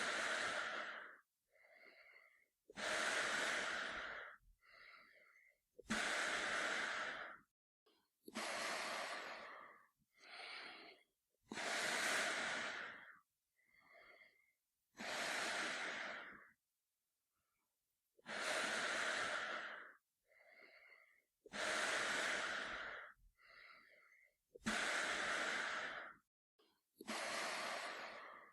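A man breathing slowly and heavily through a gas mask, each loud, drawn-out breath followed by a shorter, fainter one, in a steady rhythm of about one pair every three seconds.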